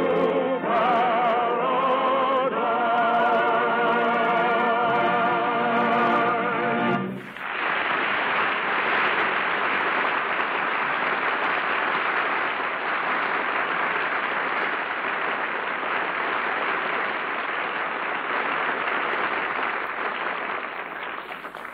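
Operatic singing of a waltz song, ending on a long held note with vibrato; about seven seconds in, a studio audience breaks into steady applause that carries on, easing slightly near the end.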